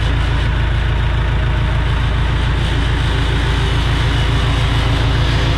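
John Deere 455G crawler loader's diesel engine idling, a steady low rumble with an even pulse.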